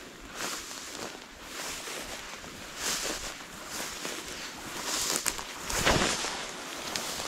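Footsteps through tall dry grass, the stalks swishing against legs and clothing in a run of rustles about once a second. The loudest brush comes about six seconds in, as a camouflage sleeve passes right against the microphone.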